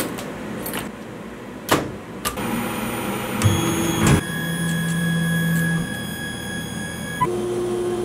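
Laguna Swift CNC router powering up: a few sharp clicks from the control-panel switches, then a steady electrical hum with several high whining tones. Its stepper motors whine at a steady pitch in short runs of a second or two as the axes move to home.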